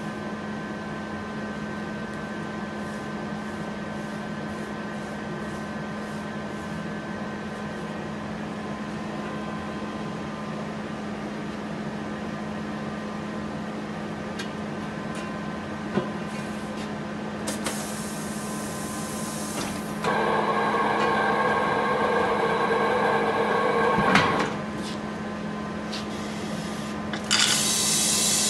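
A pneumatic tyre-changing machine fitting a tyre onto a 20-inch alloy wheel, over a steady workshop hum. Air hisses briefly about two-thirds of the way in. Then the turntable motor runs for about four seconds and stops with a sharp knock, and a loud hiss of air starts near the end.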